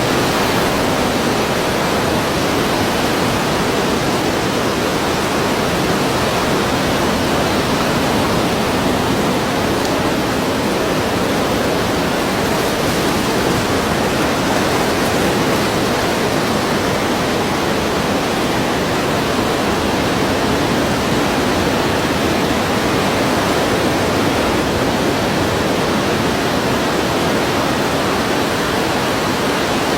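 Sea waves: a continuous, even rushing roar of surf with no distinct swells or breaks.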